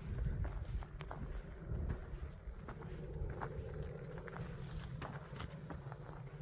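Insects trill in a steady high drone, with a regular chirping pulse above it. Footsteps scuff and click, over a low rumble.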